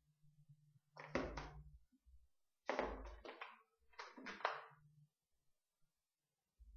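Whiteboard duster wiped across the board in three short rubbing strokes, each under a second, with short pauses between.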